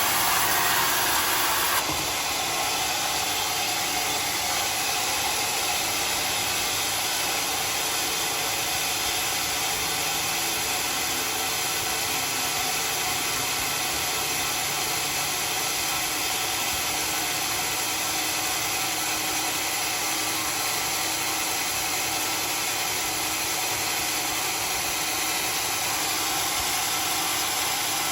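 Homemade wood sawmill running, a steady whirring noise that drops a little in level about two seconds in.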